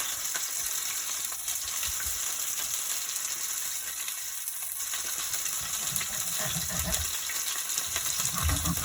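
Whole red snapper sizzling as it fries in hot oil in a pot on the stove top, a steady crackling hiss, with a few low thuds near the end.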